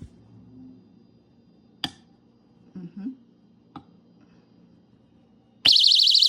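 A few light taps, then about five and a half seconds in an EVA LOGIK vibration-sensor window alarm goes off: a very loud, high-pitched, rapidly warbling siren, set off by the vibration on its less sensitive setting.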